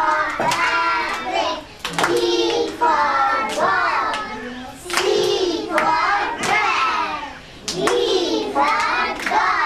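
Young children and a woman singing a rhyme together, with sharp hand claps among the phrases.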